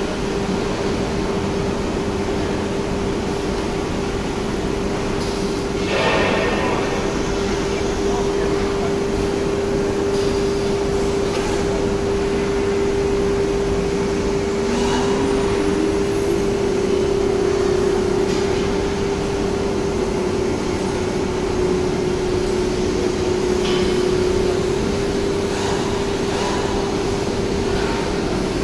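CNC nesting router with an ISO30 tool-changer spindle, vacuum table and dust collection running, with a steady high spindle whine over a constant machine rush. A few brief, louder noises break through, the clearest about six seconds in.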